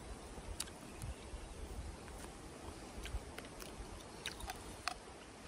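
A person chewing a mouthful of grilled barbecue, with wet mouth smacks and sharp clicks, most of them bunched in the second half.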